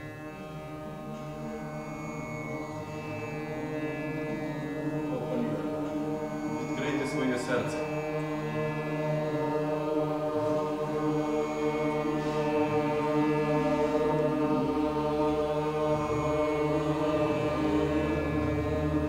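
A steady musical drone with voices chanting a mantra over it, swelling gradually louder. A brief burst of sharp clicks comes about seven seconds in.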